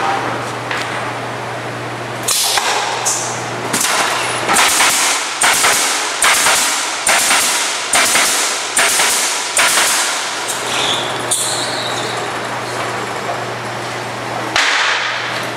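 Automatic pallet-nailing machine with three pneumatic coil nailers driving nails into pallet deck boards: a rapid, regular series of about a dozen sharp shots, each with a hiss of air, then a few weaker ones and one more near the end. A steady low machine hum runs underneath.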